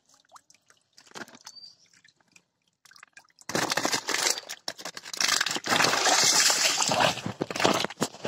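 Pond water splashing and sloshing around a person wading and groping through it by hand. A few small splashes and drips at first, then a loud, continuous run of splashing from about three and a half seconds in.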